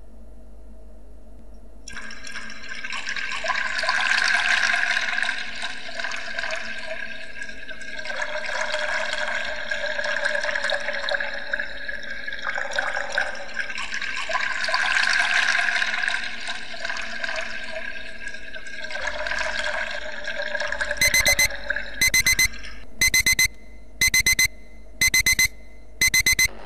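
A long rushing, water-like noise swells twice. Near the end a digital alarm clock starts beeping in short bursts of rapid beeps, about one burst a second.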